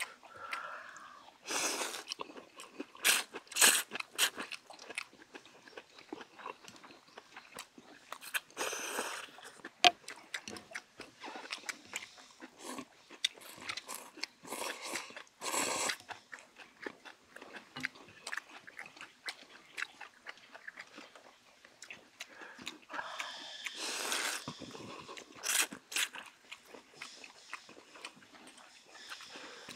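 Two people slurping thin wheat noodles in broth and chewing, in repeated bursts of slurping, some about a second long, with quieter chewing between.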